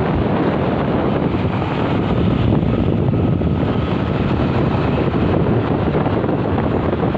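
Wind buffeting the microphone on a moving motorbike or scooter, over steady road and engine noise.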